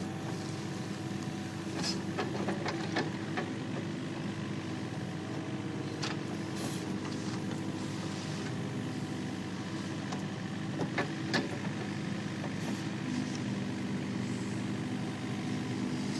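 Diesel engines of heavy earthmoving machinery running steadily while an excavator digs to free a bogged skid steer. A few sharp knocks sound at intervals, about 2, 3, 6 and 11 seconds in.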